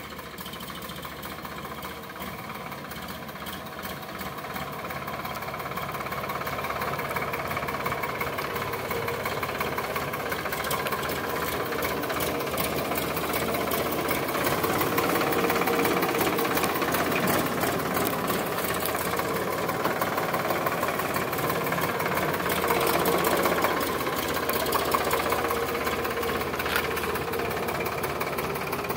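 Sonalika DI 745 III tractor's three-cylinder diesel engine running, growing louder over the first fifteen seconds or so as the tractor drives up close, then running steadily nearby.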